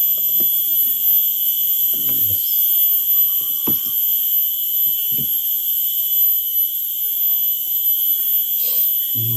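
Steady, high-pitched drone of insects in the forest, with a few faint knocks and handling sounds.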